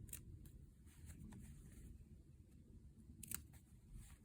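Scissors snipping fabric, clipping small notches into a curved seam allowance: a few faint snips, the clearest a little over three seconds in.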